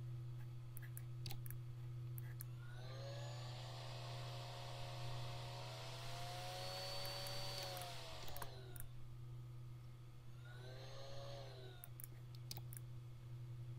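Occasional mouse clicks over a steady low electrical hum, with a whirring machine sound that rises in pitch, holds for several seconds and falls away, then swells again more briefly near the end.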